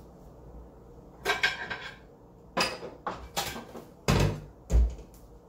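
Metal pans clattering and clanking as a frying pan is fetched, with two heavier thumps about four and five seconds in.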